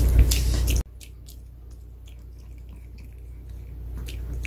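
A Pomeranian chewing a probiotic dog treat, with sharp crunching clicks over a steady low hum. Just under a second in the sound drops abruptly, leaving fainter chewing clicks that grow louder again near the end.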